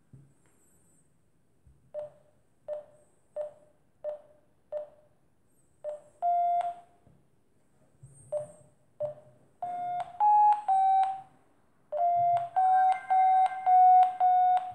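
Electronic variometer beeps: a run of short, evenly spaced beeps at about one and a half a second, then, from about two-thirds of the way in, longer and slightly higher tones, some stepping up in pitch, the kind a vario gives to signal climb.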